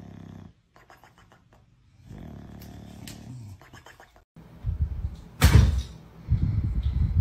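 A sleeping bulldog snoring, with one snore at the start and a longer one about two seconds in. Then come a sharp knock and a loud, low rumbling noise, the loudest sound here.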